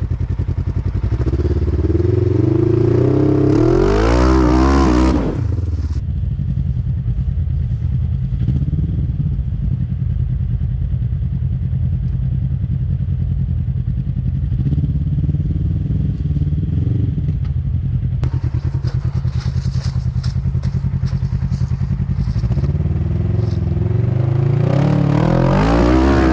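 Polaris RZR side-by-side engine working hard as it climbs a rough hill, revving up in a rising surge about four seconds in and again near the end, with steady running in between.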